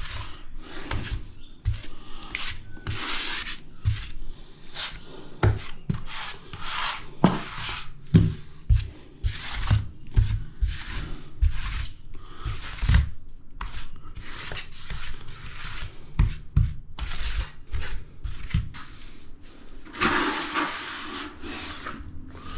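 Grout float being swept across ceramic subway wall tiles, pressing grout into the joints in short, irregular rubbing and scraping strokes, about one to two a second, with light knocks between them.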